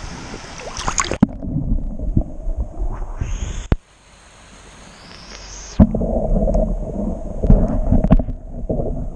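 Muffled underwater rumble and gurgling of a shallow stream, heard through an action camera held below the surface, with occasional sharp knocks. The treble drops away about a second in as the camera goes under.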